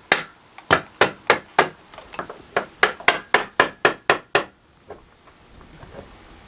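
Hammer blows on the van's steel roof support beam, knocking at its drilled-out spot welds to check they are free: runs of sharp strikes at about three a second that stop about four and a half seconds in.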